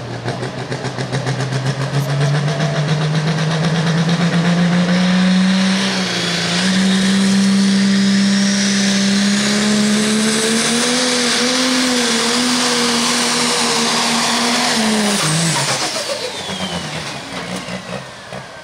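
Turbocharged diesel engine of an International Pro Stock pulling tractor at full power dragging a sled, with a high turbo whine climbing beside the engine note. The pitch dips briefly about six seconds in and wavers a little later. About fifteen seconds in the throttle comes off, and engine and turbo wind down together.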